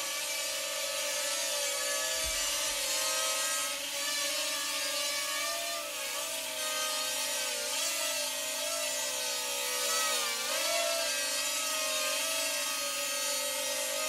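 Parrot Rolling Spider minidrone's small quadcopter propellers whining steadily in flight while carrying a star ornament. The pitch dips briefly twice in the second half as the drone is steered.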